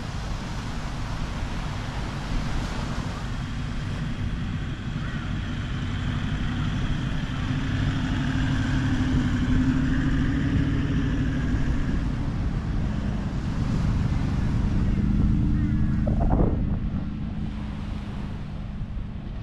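A four-wheel drive driving past on beach sand: its engine grows louder, peaks near the end and then fades as it pulls away, over a steady low rumble.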